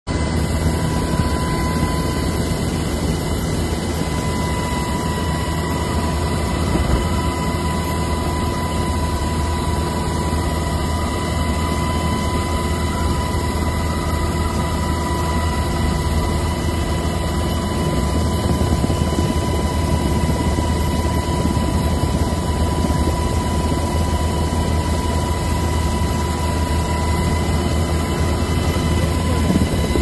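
Coast Guard helicopter's engines and rotor heard from inside the cabin through the open door: a loud, steady drone with a constant high whine.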